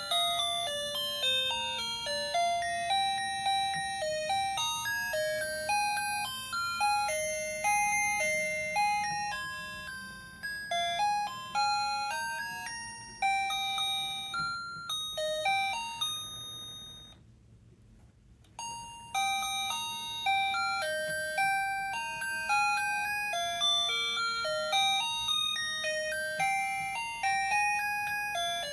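Gemmy animated knitting teddy bear playing its electronic Christmas melody, a tune of single bell-like notes. The melody breaks off for about a second and a half some seventeen seconds in, then starts again.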